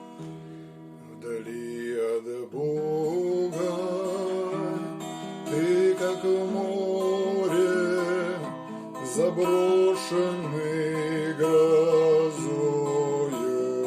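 A hymn sung to acoustic guitar accompaniment: the guitar plays alone at first, and a singing voice with a wavering pitch comes in about two seconds in.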